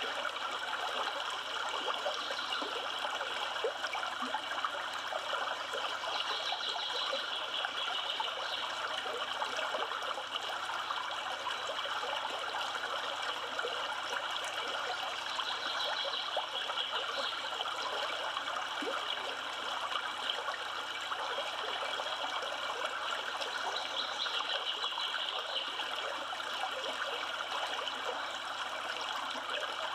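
Steady rush of the Yellowstone River flowing, an even watery hiss with no breaks.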